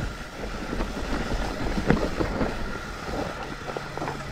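Mountain bike descending a rough forest trail, its tyres rolling over dirt and leaves, with frequent clicks and knocks as the chain and frame rattle over bumps. Wind rumbles on the microphone.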